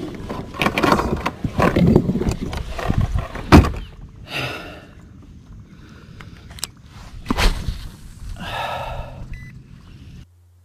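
Fishing gear being handled in a plastic kayak: a busy run of knocks, bumps and rustles with a sharp click about three and a half seconds in. Then it goes quieter, with two short whirring hisses from a spinning reel being readied to cast.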